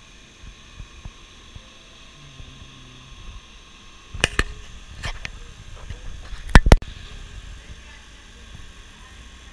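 A few sharp clicks and knocks from hands handling an opened LCD TV's chassis, with the loudest two close together about two-thirds of the way through.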